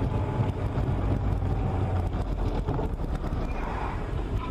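Steady low rumble of a car driving at highway speed on a wet road, heard from inside the cabin: engine and tyre noise with a hiss of road noise over it.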